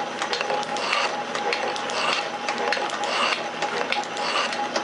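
Metal shaper running and cutting steel, its ram stroking back and forth about once a second over a steady whine from the drive, with rapid clicking throughout.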